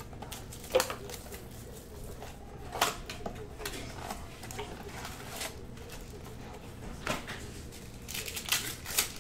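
Basketball trading cards being handled and sorted by hand: irregular light clicks and taps, with sharper ones about a second in, around three seconds in, and near the end.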